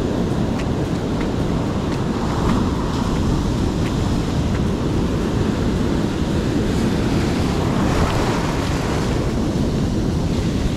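Ocean surf breaking and foamy wash surging up the beach, with wind buffeting the microphone.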